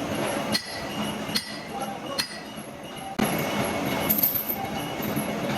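Three sharp metal-on-metal clinks, each ringing briefly, spaced a little under a second apart. About three seconds in, steady machine running starts again suddenly.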